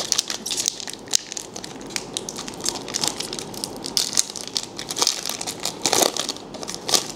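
Foil wrapper of a Pokémon card booster pack being torn open and crinkled by hand: a dense run of irregular crackling crinkles.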